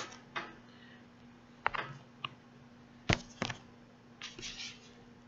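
Scattered light clicks and taps, about six of them, with a short rustle near the end: the wig, pins and sewing tools being handled on the mannequin head.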